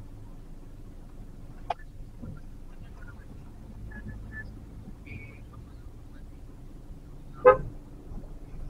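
Low, steady hum of a car cabin in slow traffic, broken by a brief sharp click a little under two seconds in and one short vehicle-horn toot about seven and a half seconds in, which is the loudest sound.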